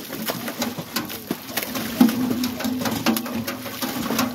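Stocked catfish dropping out of an outlet pipe into a lake, making repeated sharp splashes, the loudest about two seconds in. A bird's low call is held for over a second in the middle.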